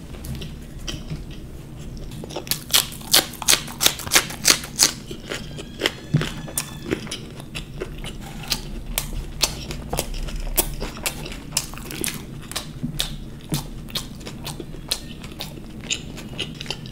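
Close-up chewing of crisp fried samosa pastry: a run of sharp crunches, densest and loudest a few seconds in, then thinning to scattered crunches and mouth sounds.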